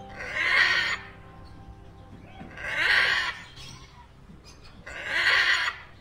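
Green-winged macaw giving three loud, harsh squawks, each about a second long and roughly two and a half seconds apart, with faint music underneath.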